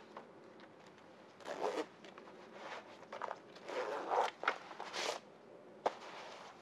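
Zipper of a Stokes water ski vest being hooked and pulled up in a few short zipping strokes, about a second and a half in and again from about three and a half to five seconds in, with a single sharp click near the end.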